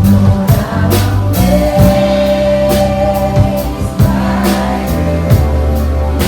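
Live gospel praise-and-worship music: singing over a band with steady bass notes and a drum kit keeping a beat.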